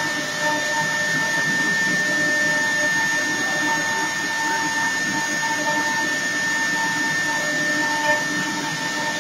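CNC router spindle running at high speed while its small engraving bit carves relief into a wooden cylinder turning on the rotary fourth axis: a steady high whine over a rough cutting noise.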